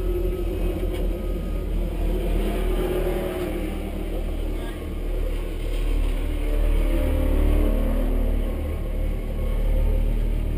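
Rally car engine idling with the car standing still, a steady low rumble.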